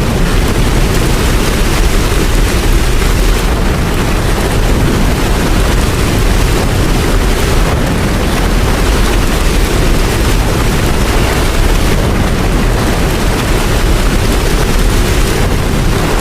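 Heavy rain falling steadily, with a deep rumble underneath.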